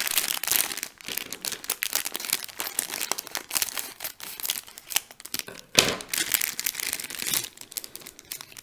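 A toy mystery-pack wrapper being crinkled and torn open by hand: continuous crackling and rustling, with one sharp louder rip just before six seconds in.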